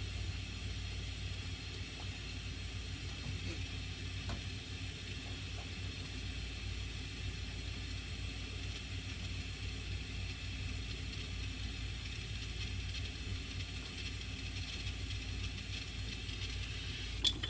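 Steady low background rumble with a faint steady hum, and a few light clinks, the sharpest near the end.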